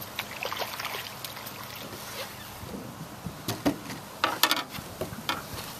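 A hooked bass thrashing and splashing at the surface beside a boat as it is brought in to be lipped. The splashes come in short bursts, loudest a little past four seconds in.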